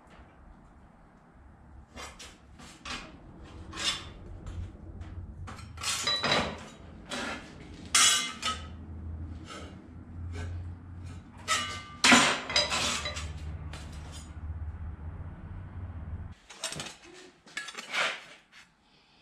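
Irregular metallic clinks and knocks as a thin, hardened 52100 steel knife blade is worked in a steel bench vise during post-quench straightening, some strikes leaving a brief high ring, over a steady low hum. The hum cuts off about 16 seconds in, followed by a few more clinks of the broken blade pieces being handled.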